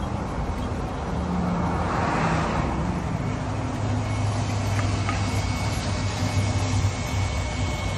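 Road traffic noise: a vehicle passes about two seconds in, over a steady low engine hum.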